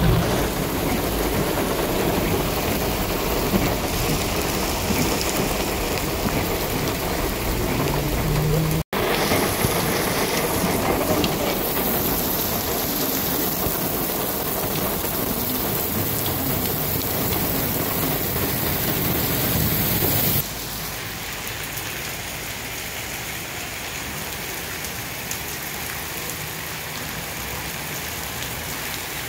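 Heavy rain pouring down steadily, in clips cut together: the sound breaks off for an instant about nine seconds in, and drops to a quieter rain about twenty seconds in.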